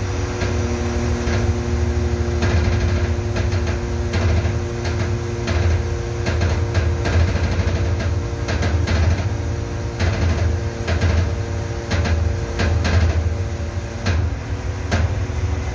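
Heavy machine engine, most likely the lifting crane's, running steadily with a low hum and a steady whine, overlaid by irregular metal clanks and knocks.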